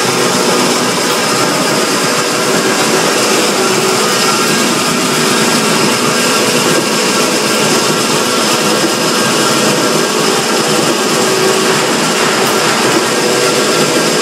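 Wood sawdust-making machine (log crusher) running steadily while grinding wood into sawdust: a loud, even mechanical drone with a few steady hum tones.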